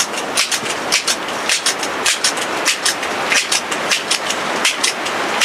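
Crosman 1322 multi-pump pneumatic pellet pistol being pumped: a quick run of sharp clicks from the pump arm's strokes, a few a second, over a steady hiss of wind noise.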